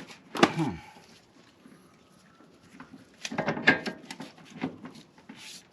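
Clicks and knocks of hand tools and metal suspension parts being handled during a camber arm install: one clatter right at the start, then a denser run of clicks about three seconds in.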